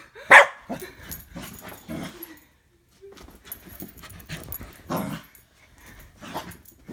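Bernedoodle dog barking during energetic play: a loud sharp bark about half a second in and another about five seconds in, with softer short sounds between.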